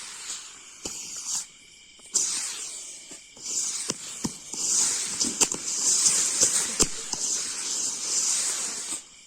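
Firework rockets fizzing and hissing, in swells that drop out twice early on before surging back, with scattered sharp pops and cracks.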